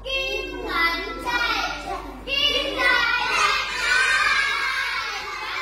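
A group of young children singing together in loud phrases.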